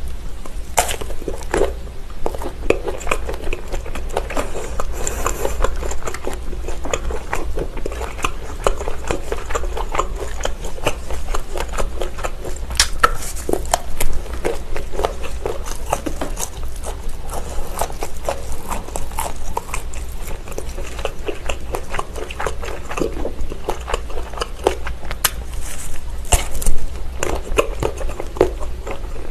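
Close-miked biting and chewing of linked Vienna sausages: a steady run of sharp bites and wet chewing sounds, with two louder snaps, about halfway through and near the end.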